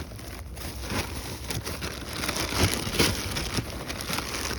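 Rummaging through parts and packaging: irregular small clicks and rustles over a steady hiss.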